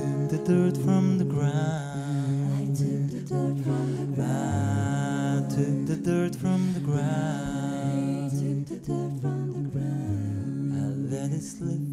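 Mixed five-voice a cappella group singing in close harmony over a sung bass line that steps between notes, with beatboxed vocal percussion clicking throughout.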